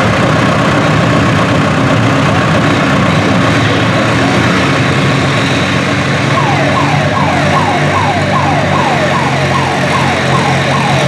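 Antique tractor engine running steadily under load while pulling a weight-transfer sled. From about six seconds in, a quick repeating falling wail, two to three sweeps a second, sounds over the engine.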